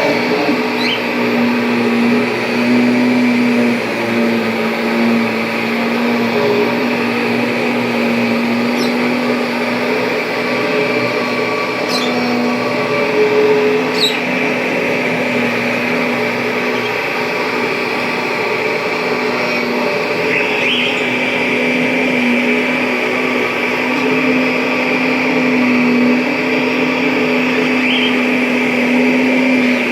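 A 1997 Kirby G5 upright vacuum cleaner running steadily: a constant motor hum with a rush of air, and a few faint ticks along the way.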